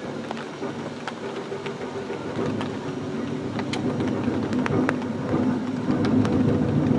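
Aerial fireworks display: a low rumble of bursts that builds steadily louder, scattered with sharp crackles and pops.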